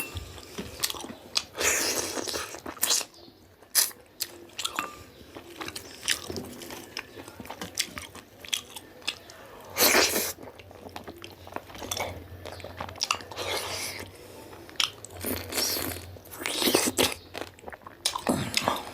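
A person eating rooster curry with millet dhido close to the microphone: irregular chewing and biting with crunches, the loudest about ten seconds in.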